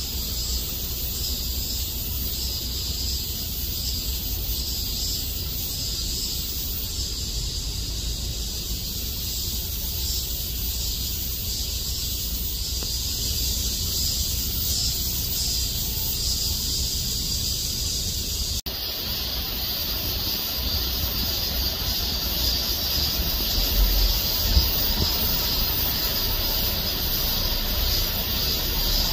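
Steady outdoor background noise: a high hiss over a low rumble, which changes abruptly about two-thirds of the way through.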